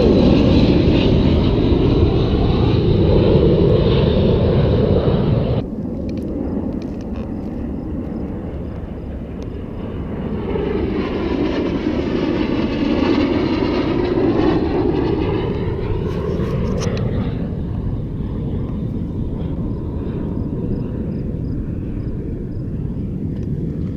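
Airshow aircraft flying past overhead. The loud engine noise at the start cuts off abruptly about six seconds in. A second pass then swells and fades between about ten and seventeen seconds, with a sweeping change in tone as it goes by. A steady low rumble runs underneath.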